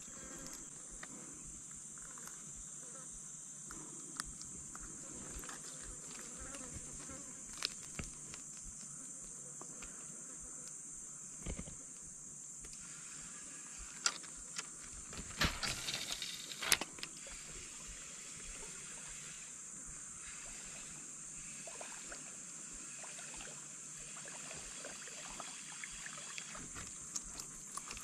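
Steady high-pitched insect chorus, with scattered clicks and a short cluster of louder knocks and rustling about halfway through.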